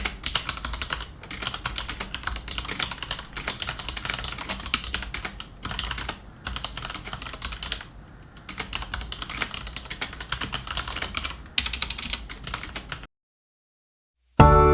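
Rapid typing on a computer keyboard: fast, irregular key clicks in several runs with brief pauses, stopping about a second and a half before the end.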